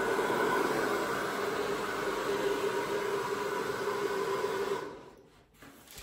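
Handheld electric blower running steadily with a motor hum over rushing air, blowing the acrylic paint across the surface in a Dutch pour. It cuts off about five seconds in.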